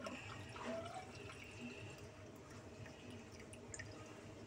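Faint trickling and dripping of water from a water-purifier tap, refilling a measuring glass.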